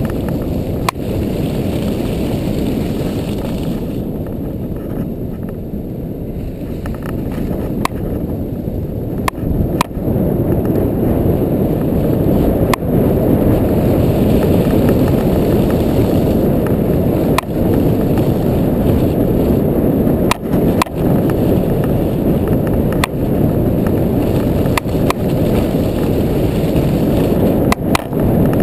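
ATV riding over a snow-covered forest track: a steady low rumble of the machine and wind on the microphone, with sharp knocks every few seconds as it jolts over bumps.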